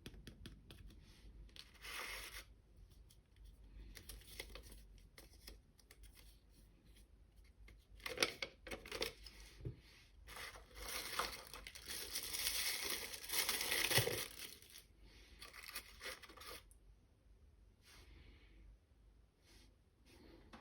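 Toy packaging being torn open and crinkled by hand, in irregular rustling bursts that are busiest and loudest in the middle.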